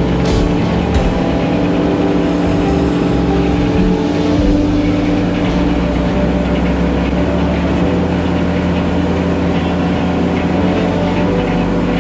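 An engine running steadily at a constant speed: an even, loud drone with no revving or breaks.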